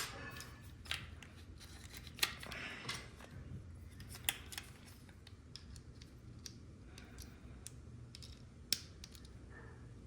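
Faint, scattered clicks and light scrapes of metal doorknob parts as the knob's retainer button is pressed in with a pin and the knob is worked off its spindle.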